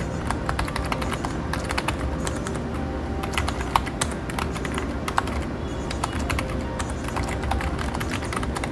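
Keyboard typing on a Furuno Felcom 18 Inmarsat-C terminal: rapid, irregular key clicks as a message is entered.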